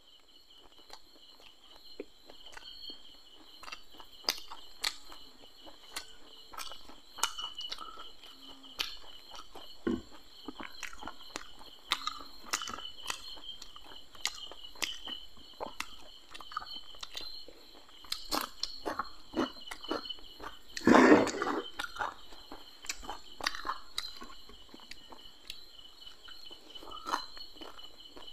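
Close-miked eating sounds of a man eating fried fish by hand: chewing, crunching and lip smacks in scattered clicks. Steady chirping of crickets runs behind. A short vocal sound from the eater comes about three-quarters of the way through and is the loudest moment.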